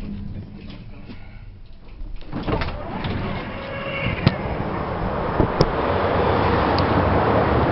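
Tatra T4D-M tram moving off: after a quiet couple of seconds its running noise sets in and grows steadily louder as it picks up speed, with a few sharp clicks along the way.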